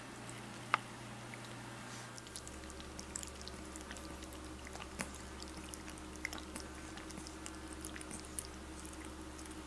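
A raccoon dog pup feeding, first at a steel bowl and then sucking at a baby bottle's teat: faint, irregular small wet clicks and smacks, with one sharper click about a second in.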